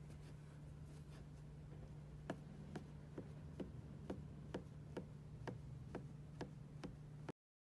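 Regular sharp clicks, about two a second, over a steady low hum, starting about two seconds in and cutting off suddenly near the end.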